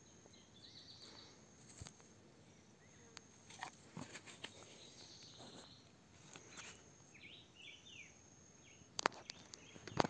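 Faint outdoor ambience: a steady high-pitched insect drone with several short high chirps scattered through it. A few sharp clicks, the loudest about nine seconds in.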